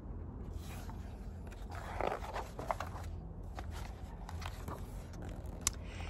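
Soft paper scraping and a few light taps as a picture book's page is turned and the book handled, over a low steady hum.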